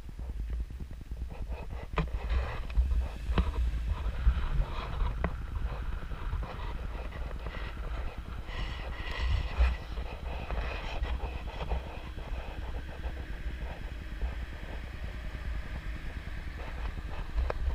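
Low, uneven rumble of a car driving slowly along a winding road, picked up by an action camera mounted outside on the car, with wind on the microphone and a few sharp knocks in the first few seconds.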